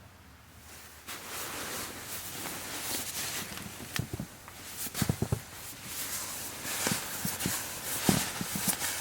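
Footsteps and rustling with scattered knocks and low thumps. A cluster of thumps comes about five seconds in and another, the loudest, about eight seconds in.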